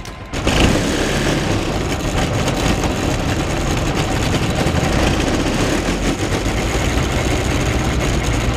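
A Sling TSi's Rotax 915 iS four-cylinder turbocharged engine and propeller come in suddenly about a third of a second in, most likely the engine catching on start-up, then run steadily at low power, heard from inside the cockpit.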